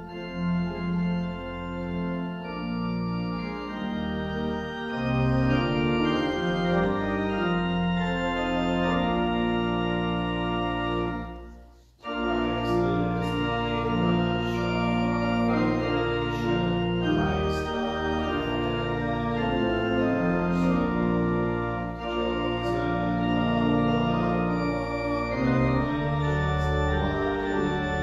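Organ music in slow, sustained chords over held bass notes. The music dies away about eleven seconds in and starts again abruptly a second later.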